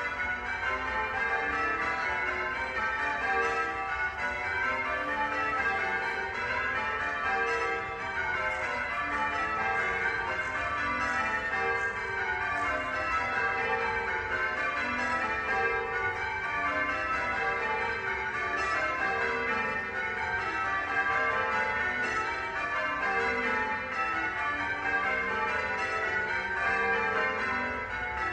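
A peal of church bells ringing continuously, many bells struck one after another in quick succession. The strokes form falling runs of notes that repeat over and over.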